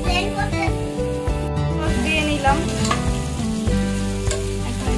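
Food sizzling as it fries in oil in a pan, stirred with a metal spatula, over background music with sustained notes.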